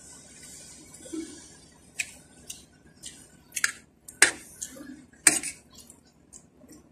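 A metal spoon and fork clink and scrape against a plate several times, with the sharpest clinks about four and five seconds in. There are eating mouth sounds between them.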